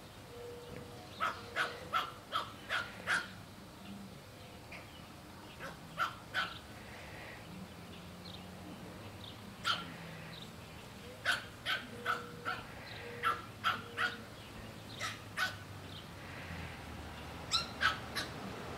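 Pug puppy yapping: short, high barks in quick bouts of two to six, again and again.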